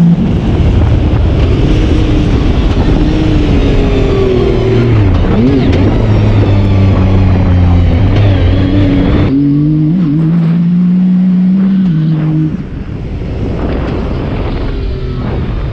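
Yamaha YXZ1000R side-by-side's three-cylinder engine running hard while driven, its note stepping up and down in pitch with the throttle and gears. It eases off somewhat near the end.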